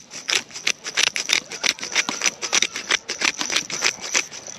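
Quick, irregular rattling clicks, several a second, from the cooking gear as a pot of zosui (rice porridge) is finished off, with a thin steady high tone underneath.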